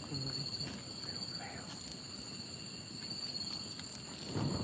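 Steady high-pitched chorus of night insects such as crickets, holding two even pitches. Low rustling noise runs underneath it, and a louder burst of rustling comes near the end.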